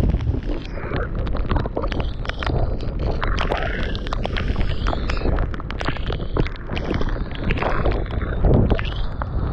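Strong gusting wind buffeting the microphone, with rushing swells of noise rising and falling every second or two and many sharp ticks of rain striking it.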